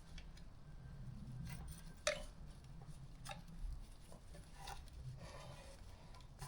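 Faint hand-work noises from fitting exhaust header wrap: a few light, separate clicks and rustles over a low steady hum.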